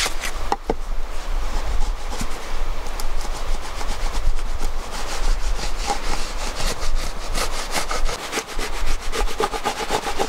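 Hand saw cutting through wood with rapid, even back-and-forth strokes, plainest in the second half.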